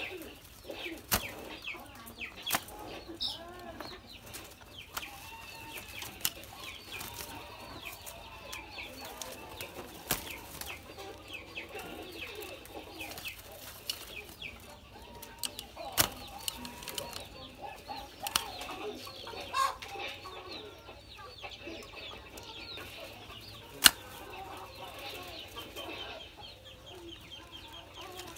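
Spotted doves scuffling in a wire cage, with bursts of wing-flapping, sharp knocks now and then (the loudest late on), and repeated bird calls.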